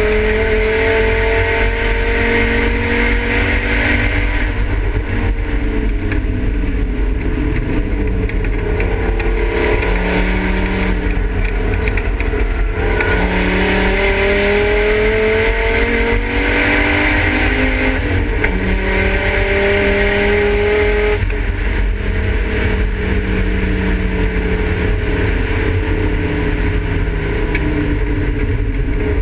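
Volvo 850 race car's inline five-cylinder engine, heard from inside the stripped cabin while lapping a circuit. The engine note climbs slowly under throttle and drops back at each gear change or lift, several times over.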